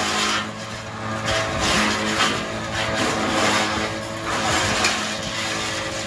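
Tractor-driven PTO wood chipper running at speed, chipping branches fed into its hopper in repeated bursts of crackling noise over the steady drone of the tractor engine.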